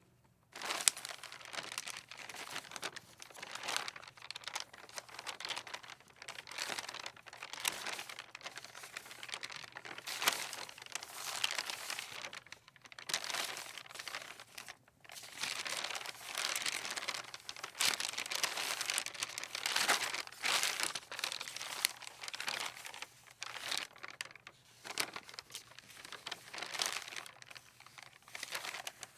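Sheets of paper rustling and flapping in the wind, an irregular crinkling that swells and fades in gusts with brief lulls.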